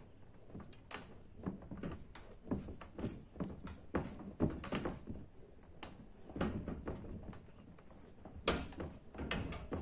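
Hand-driven homemade Skinner-style gravity machine: its steel frame, lever arm and turning weights give a run of irregular metal clunks and rattles as the lever is pushed and pulled, the sharpest knock near the end.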